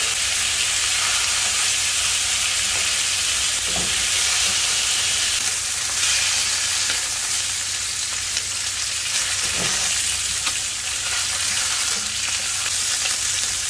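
Duck breasts and legs sizzling in a dry nonstick pan with no oil added, a steady frying hiss as the fat renders out of the skin.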